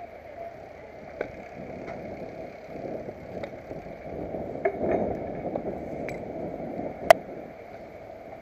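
Rustling and rubbing of rope and climbing gear against a helmet-mounted camera as a climber works across a rope element of a high ropes course, with a handful of sharp clicks and knocks; the loudest click comes about seven seconds in.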